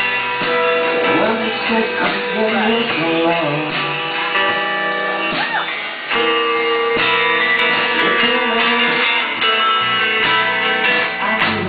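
Live band music: guitars playing sustained chords, with a voice singing now and then.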